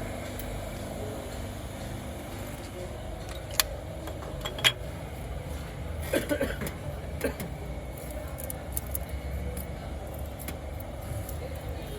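Hand tools clinking against metal a few times, sharp single clicks, over a steady low workshop hum.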